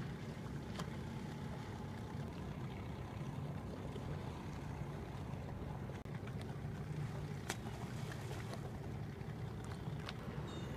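Boat engine running steadily with a low, even hum, with a few faint ticks.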